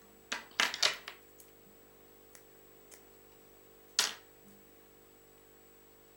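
Sharp clicks and snaps from hands handling a fly-tying vise and the fly in it: a quick cluster about half a second to a second in, a few tiny ticks after, and one louder single click about four seconds in, over a steady faint mains hum.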